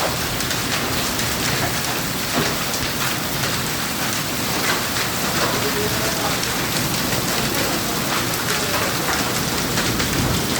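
Hailstorm: hail and rain pelting down steadily, a dense patter with many sharp clicks of stones striking surfaces.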